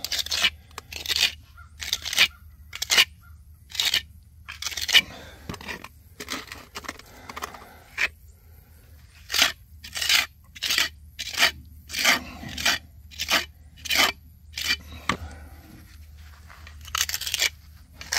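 A small square trowel repeatedly scraping and packing stiff fast-set cement repair mortar into holes in a concrete foundation wall. Short gritty strokes come about one or two a second, with a brief pause near the end.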